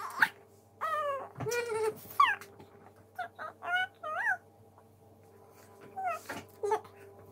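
A toddler's high-pitched wordless squeals and babbling: a series of short calls that slide up and down in pitch, with a quiet gap in the middle and two more calls near the end.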